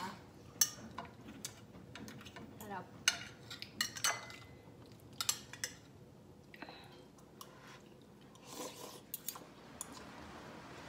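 Someone eating noodle soup: a spoon clinks and taps irregularly against a ceramic bowl, with a short slurp late on.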